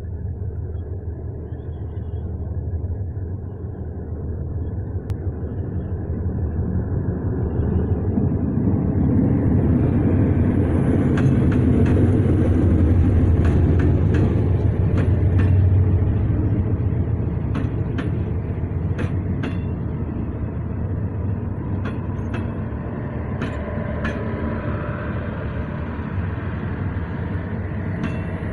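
SRT GEA-class diesel-electric locomotive No. 4548 hauling an express train slowly into a station. Its diesel rumble builds as it approaches and is loudest as the locomotive passes, about ten to sixteen seconds in. The coaches then roll by with sharp irregular clicks of wheels over the rail joints and a faint high squeal.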